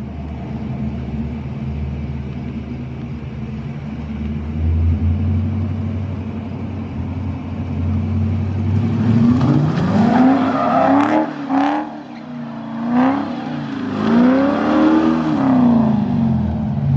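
C5 Corvette's V8 engine running steadily, then revved several times from about nine seconds in, its pitch rising and falling with each rev.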